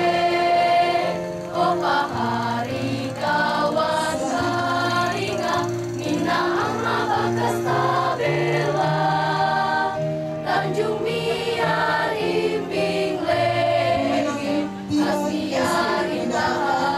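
A school choir of teenage students, mostly girls, singing a song together, accompanied by an electronic keyboard that holds steady low notes under the voices.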